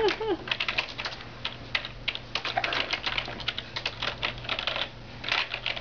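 Computer keyboard keys clattering in irregular, uneven clicks as a baby slaps and pats at them with her hands.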